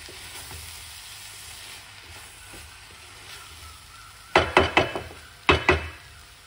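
Cauliflower rice sizzling softly in a metal pot while a wooden spoon stirs it. A bit after four seconds the spoon raps the pot several times in quick succession, then twice more about a second later, each knock ringing the metal briefly.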